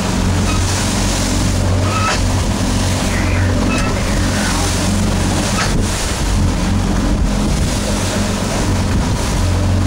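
A boat engine running steadily as the hull drives through choppy waves, with the rush of spray and wind buffeting the microphone, and a few brief slaps or knocks.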